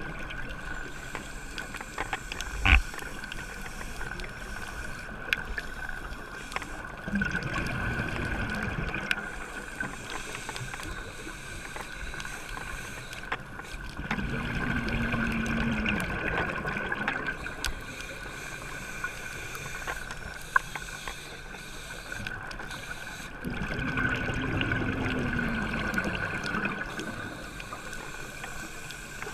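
Scuba diver breathing through a regulator underwater. Three long bursts of rumbling exhaled bubbles come about eight seconds apart, over a steady high tone. A single sharp knock sounds about three seconds in.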